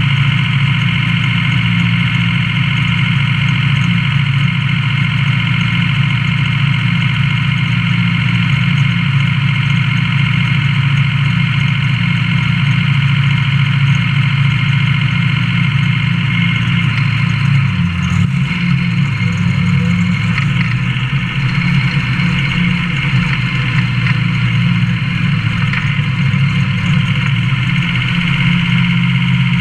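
A pulling truck's engine idling loudly and steadily, heard from inside its cab. A little past halfway through, its low note shifts slightly.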